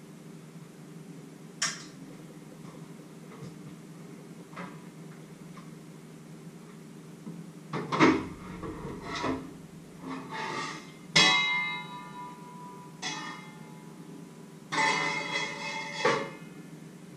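Stainless steel pots and lids clanking on a stovetop: a couple of light clicks, then about halfway in a run of metal knocks and clangs, the loudest ringing on for about a second like a struck bell. A steady low hum runs underneath.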